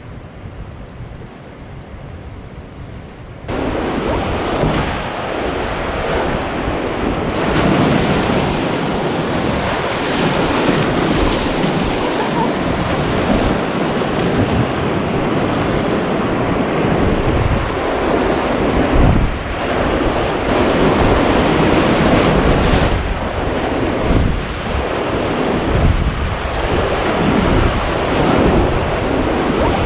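Rushing river water with wind buffeting the microphone, rising suddenly to a loud, steady rush about three and a half seconds in.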